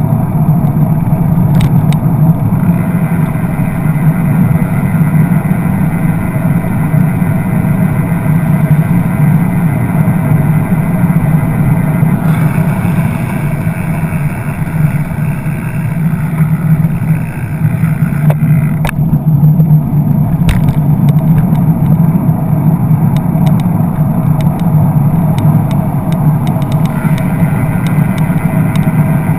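Steady rumble of slow, queued road traffic with a bus engine running close alongside, heard from a bicycle filtering between the lanes. A couple of sharp clicks sound near the middle.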